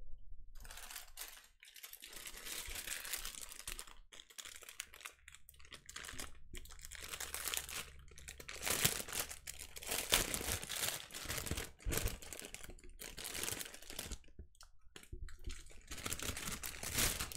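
Plastic wrap crinkling and rustling as a large bundle of small plastic bags of diamond-painting drills is unwrapped and handled, with many irregular crackles and clicks.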